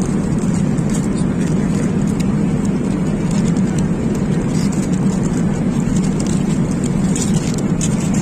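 Steady, even cabin noise of a jet airliner in flight: engine and airflow rush, strongest low down and unbroken.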